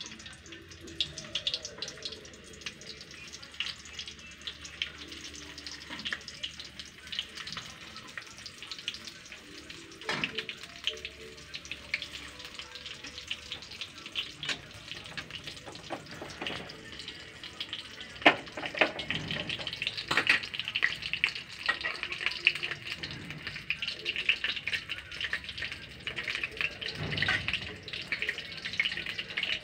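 Eggplant pieces shallow-frying in hot mustard oil in a kadhai: a steady crackling sizzle with many small spitting pops and a few sharper clicks, growing denser and louder in the second half.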